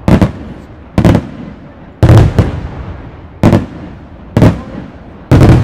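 Aerial firework shells bursting: six loud booms about a second apart, each followed by a fading rumble.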